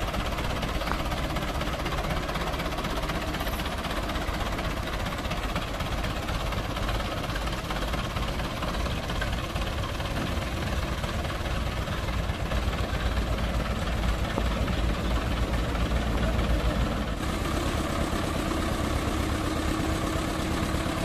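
Old Hindustan tractor's diesel engine running steadily, a bit louder in the middle. A steady higher hum joins near the end.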